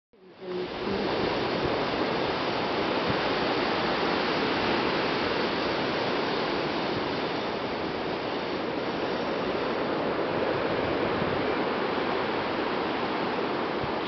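Small Black Sea waves breaking and washing on the shore, a steady, even rush of surf that fades in over the first half second.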